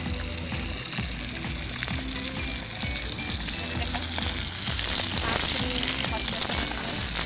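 Pieces of fish frying in hot mustard oil, sizzling steadily while being stirred; the sizzle grows louder about four and a half seconds in.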